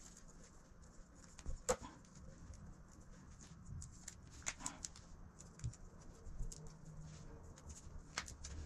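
Faint, scattered clicks and crackles of electrical tape being unwound and wrapped by hand around plastic wire connectors.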